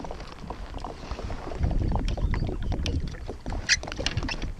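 Water sloshing against a kayak's hull, with wind rumbling on the microphone, strongest about two seconds in. A few light clicks and knocks sound through it, the sharpest near the end.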